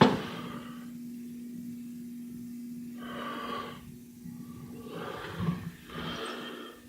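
A steady low hum with three soft breath-like rushes of noise over it, about three, five and six seconds in.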